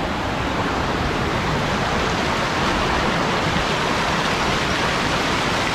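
Steady rush of water from a fast-flowing river and its waterfall: an even, unbroken roar of noise.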